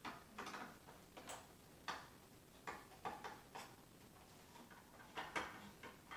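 Screwdriver working screws on the plastic housing of a Maytag upright vacuum: faint, irregular clicks and scrapes, about a dozen short ones spread unevenly.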